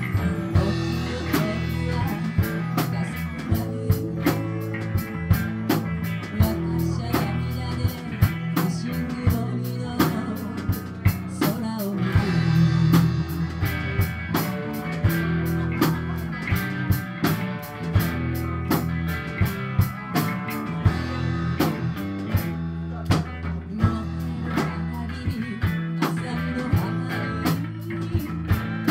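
Live rock band of electric guitar, electric bass and drum kit playing an enka song, with a steady drum beat throughout.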